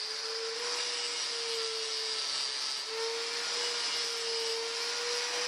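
Electric angle grinder running steadily with its disc grinding down the riveted head of a hardened steel motorcycle chain pin until it sits flush with the link plate. A continuous whine that wavers slightly in pitch, over a grinding hiss.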